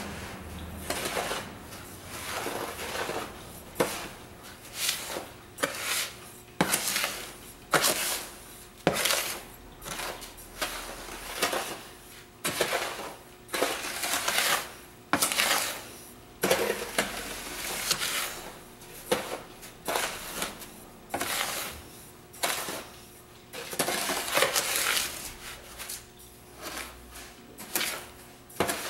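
Epsom salts and dried lemongrass being stirred and scraped by hand in a tub: repeated scraping, rustling strokes, roughly one a second, uneven.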